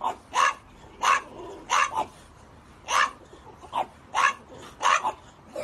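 French bulldog barking repeatedly in short, sharp barks, about one to two a second, some coming in quick pairs.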